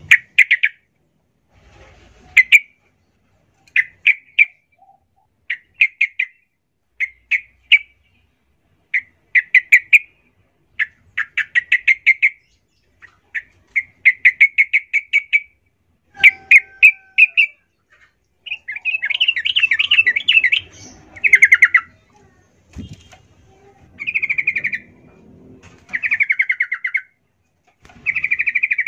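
Yellow-vented bulbul singing: short bubbly phrases of rapid notes repeated every second or two, becoming longer, fuller phrases in the second half.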